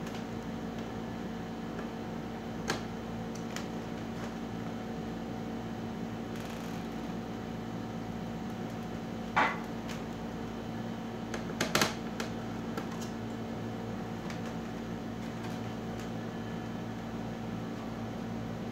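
Steady mechanical hum of a running appliance, with a few scattered clicks and knocks. The loudest knock comes about nine seconds in, and a short clatter of several clicks follows about two seconds later.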